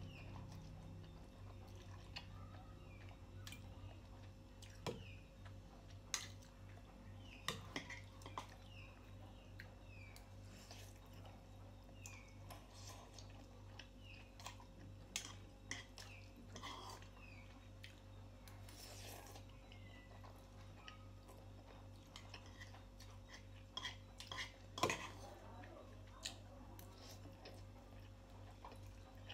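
Instant ramen noodles being slurped and chewed, with a metal fork clicking against a bowl now and then; the sharpest clink comes about 25 seconds in.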